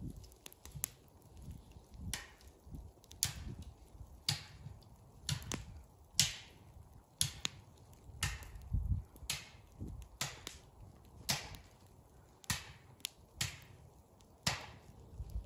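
Slow, regular footsteps crunching through icy, crusted snow, about one step a second, each a short crisp crunch with a soft thud.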